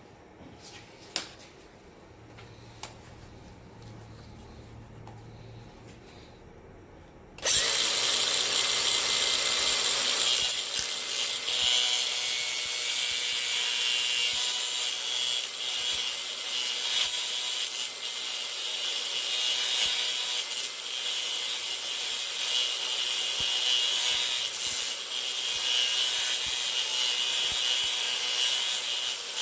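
A grinder cutting off the metal roller pin that holds a car's inside door handle: after two faint clicks it starts suddenly about seven seconds in and grinds steadily from then on.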